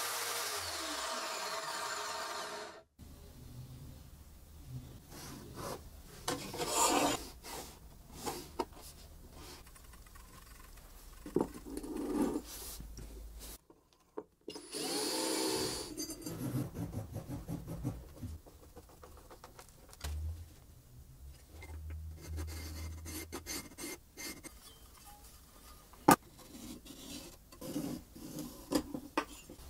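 A large angle grinder with a 320 mm cutting wheel spinning down, its whine falling in pitch for about three seconds until it stops. Then scattered knocks and handling noises, with about a second and a half of a cordless drill boring into a steel tube near the middle.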